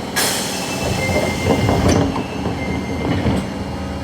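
Osaka Metro 22 series subway train: a sudden hiss just after the start that fades within about a second, then low rumbling and clatter of the train on the rails.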